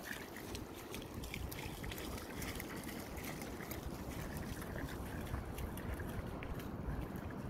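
Wind rumbling and buffeting on the microphone, steady throughout, with many faint scattered ticks and clicks.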